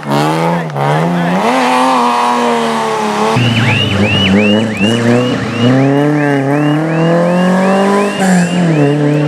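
Rally car engine held at high revs, its pitch rising and falling, as the car slides with tyres squealing; from about a third of the way in the squeal comes as a rapid run of repeated chirps, roughly three a second.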